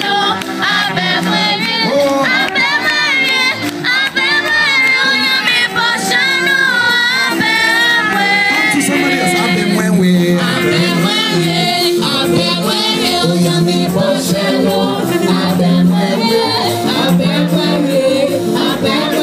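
Group singing of a praise chorus, amplified through a public-address system.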